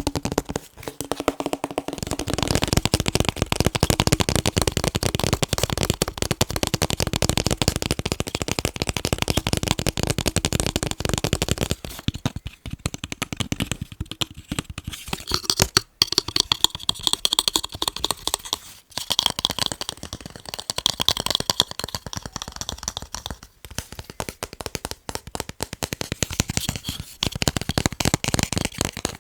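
Fast, dense tapping on picture frames. About halfway through, the taps turn sparser and brighter in tone.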